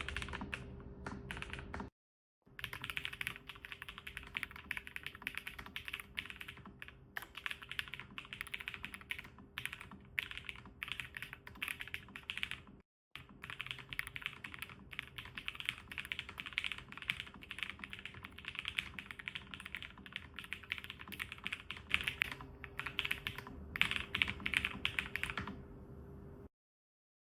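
Fast typing on a Lofree Flow Lite low-profile mechanical keyboard with Spectre switches: dense runs of soft keystroke clicks. The typing breaks off twice briefly and stops near the end, with a faint steady hum underneath.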